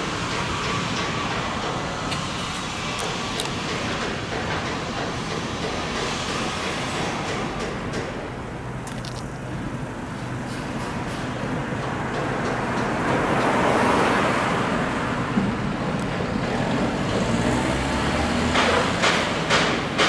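Steady road traffic noise, swelling as a vehicle passes about two-thirds of the way through. Near the end a run of sharp knocks starts, about two a second.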